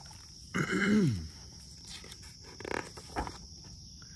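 A man's voice making a short animal-like noise that falls in pitch, about half a second in, followed by the rustle of a book's pages being handled near the end. Crickets buzz steadily in the background.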